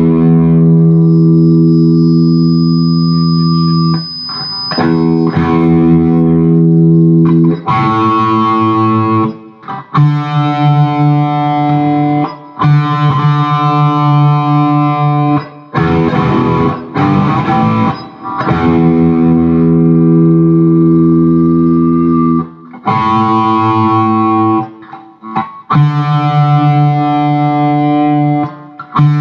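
Electric guitar through a Zoom G1X Four multi-effects pedal's Marshall-stack high-gain patch into a Peavey 6505+ combo amp. Distorted chords and notes are let ring for a few seconds each, broken by short pauses, on a guitar that may be a little out of tune.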